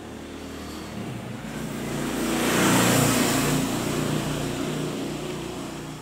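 A motor vehicle passing by: its engine noise swells to a peak about three seconds in, then fades away.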